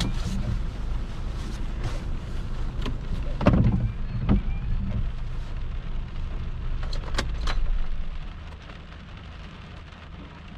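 Car cabin noise from a dash-mounted camera: a steady low rumble from the moving car with a few scattered knocks and clicks. The rumble falls away about eight seconds in.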